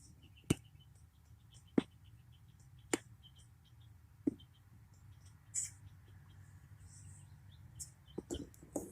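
Sharp single knocks, four of them about a second apart, then a quick cluster of several knocks near the end, over faint high ticking.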